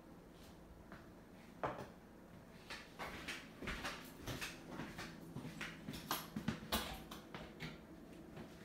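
Irregular light knocks and clicks of someone walking through a kitchen with a phone: footsteps on the hard floor and handling of the phone. A single knock about two seconds in, then a cluster of several a second through the middle, over a faint steady hum.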